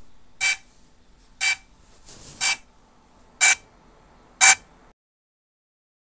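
DJI Mini SE's Find My Drone locator alarm: a short beep about once a second, five in a row, stopping about five seconds in. It is the signal used to track down a crashed or lost drone.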